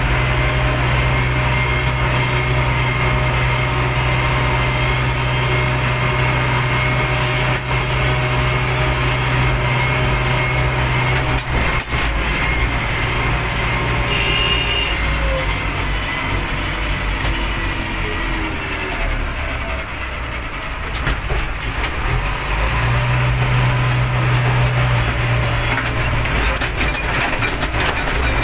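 Backhoe loader's diesel engine running as the machine drives along a road, heard from the operator's seat with scattered rattles. The engine note drops about a third of the way in and picks up again near the end.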